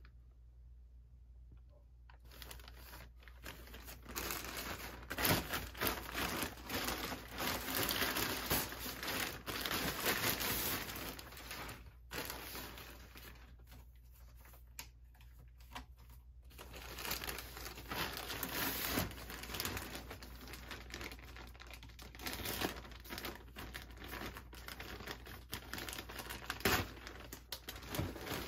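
Plastic mailer bag and wrapping crinkling and rustling as a package is handled and unwrapped, in irregular bursts; quieter for the first couple of seconds and again for a few seconds around the middle.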